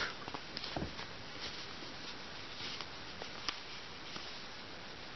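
Faint handling sounds as lace stockings are pulled onto a doll: a few light clicks and soft rustles of fingers and fabric against the doll, over a steady background hiss.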